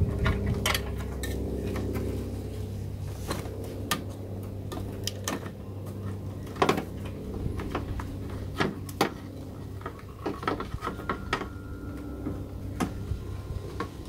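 Irregular hard plastic clicks and knocks as wiring-harness plugs are pushed onto a car's engine control unit and the unit is handled into its mount. A low steady hum sits under the first half and fades out.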